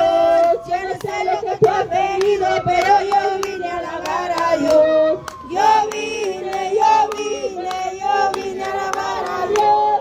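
A woman singing a worship song into a microphone, with steady hand-clapping keeping the beat.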